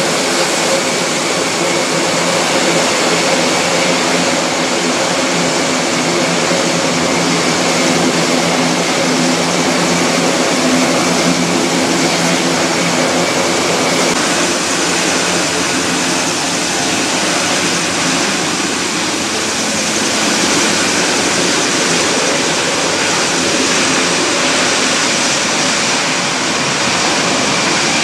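Airbus A400M Atlas's four Europrop TP400-D6 turboprop engines running on the ground, a loud, steady drone of turbines and eight-bladed propellers. A higher whine in the sound drops out about halfway through.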